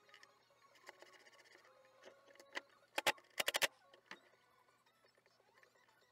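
Thin wooden slats knocking and clattering on a wooden workbench as they are handled: one sharp knock, then a quick run of loud clicks about three seconds in.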